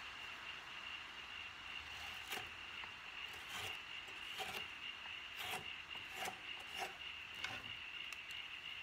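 Bent carving gouge hollowing a wooden spoon's bowl: about seven short scraping cuts, roughly one a second, over a faint steady high whine.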